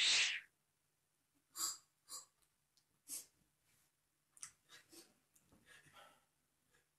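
A man sipping coffee from a small cup: several short, quiet sips and breaths spread out over a few seconds.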